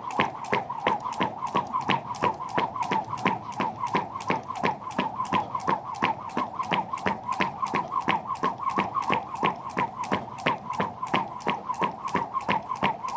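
Jump rope slapping the ground in a quick, even rhythm as someone skips without a break, with a steady high-pitched whine running underneath.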